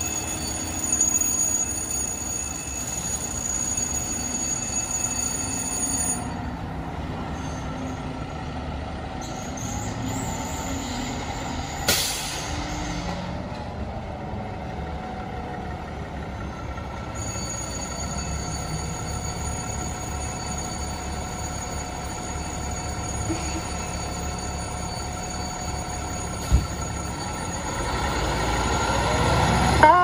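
FDNY squad fire truck's diesel engine running as it pulls out of the firehouse, with a sharp air-brake hiss about twelve seconds in. Near the end the engine grows louder and the siren starts to wail.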